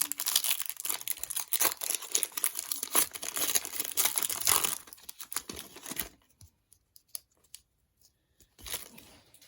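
A 1998-99 Topps basketball card pack wrapper being torn open and crinkled, with dense crackling for about six seconds before it stops.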